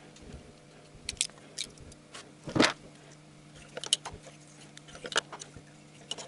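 Ignition coils of a Honda D17A engine being handled and pushed into the spark plug wells of the valve cover: scattered clicks and knocks, the loudest knock about two and a half seconds in.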